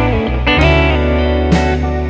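Background music: plucked notes struck about once a second, some bending in pitch, over a sustained bass.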